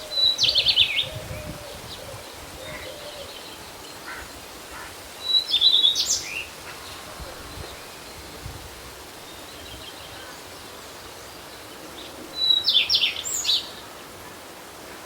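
A songbird singing the same short phrase three times, about six seconds apart: a brief high whistle followed by a quick run of notes. Fainter bird calls come in between, over steady wind noise.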